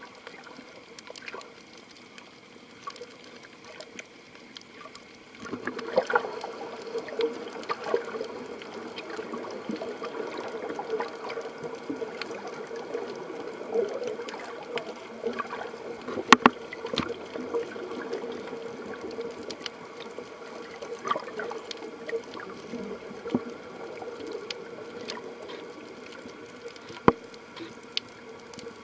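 Underwater sound picked up through a camera's waterproof housing: a steady watery rush that grows louder about five seconds in, with scattered sharp clicks and knocks.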